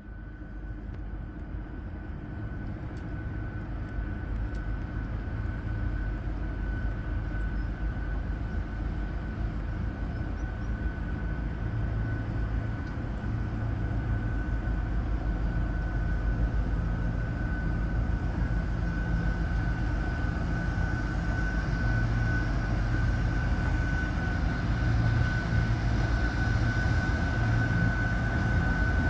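Diesel locomotive hauling a freight train of tank wagons as it approaches: a deep engine rumble growing steadily louder, with a steady high whine over it.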